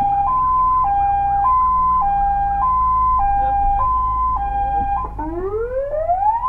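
Fire engine siren on an emergency run, heard from inside a fire engine's cab over the low rumble of the engine: a two-tone hi-lo pattern switching between a higher and a lower note about every half second. About five seconds in it changes to a wail that rises steeply in pitch.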